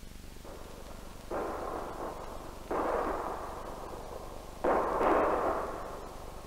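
Cannon fire: four booms one after another, the first faint, each hitting suddenly and dying away over about a second.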